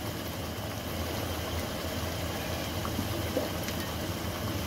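Liver curry sizzling gently in the pot on a lit gas burner: a steady low hiss with a few faint pops.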